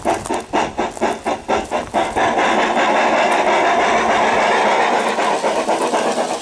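Sound system of a Bachmann K27 garden-scale model steam locomotive playing steam exhaust chuffs, about four to five a second, through its loudspeaker. About two seconds in, the chuffs give way to a steady steam hiss lasting about three seconds, then fainter chuffs return near the end.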